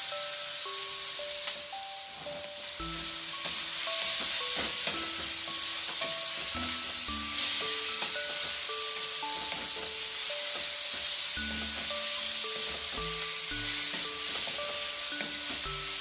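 Pork frying in hot oil with garlic and onion, sizzling steadily while it is stirred, with short clicks of a utensil against the pan. Light background music of short melodic notes plays throughout.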